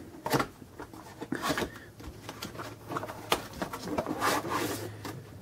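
Cardboard drone box being worked open by hand and pulled off its foam insert: scattered scrapes, rubs and light knocks of cardboard, with a longer rustling slide near the end.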